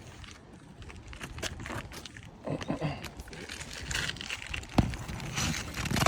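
Old asphalt shingles being pried up and handled: irregular scraping and crinkling with scattered clicks, and one sharp click about five seconds in.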